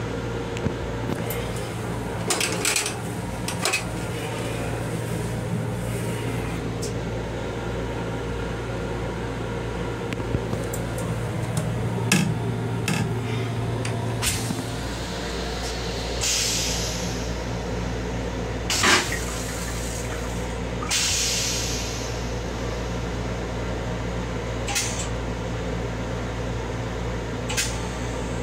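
Steady low hum and rumble of an M7 electric railcar, heard inside its small restroom, with scattered rattles and clicks and a few short hisses in the second half.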